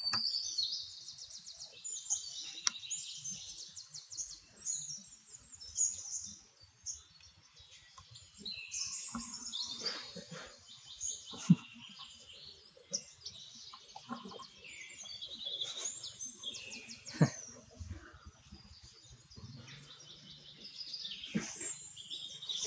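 Small birds chirping in fast runs of high notes, coming in bursts of a few seconds, with a few short sharp sounds standing out, the loudest about eleven seconds in and again a little before the end.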